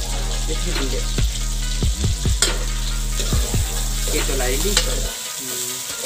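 Onions and dried red chillies sizzling in hot oil in a metal wok, with a metal ladle stirring and scraping against the pan in the latter part and a few sharp clicks. Under it runs a steady low hum that drops away near the end.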